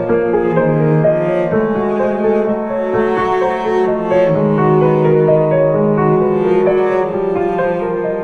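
Background music: slow instrumental piece with bowed strings and piano, notes held and changing every second or so.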